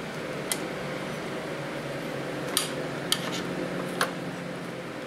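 About five light metallic clinks and taps as the steel bars and fittings of a homemade bandsaw blade sharpener are handled and slid into place. A steady machine hum runs underneath.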